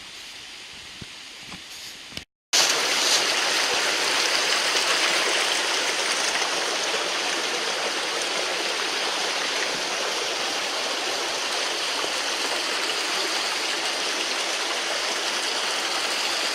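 Steady rush of a rocky stream's flowing water. A couple of seconds in there is a brief dropout, after which the rush is much louder and closer.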